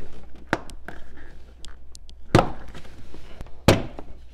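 Plastic door sill trim panel being pried up with a trim tool, its retaining clips snapping loose: three sharp snaps, the last two loudest, with lighter plastic ticks and scraping between them.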